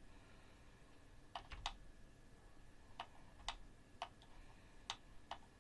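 Faint, scattered clicks of a computer mouse and keyboard, about eight of them at irregular intervals, some in quick pairs.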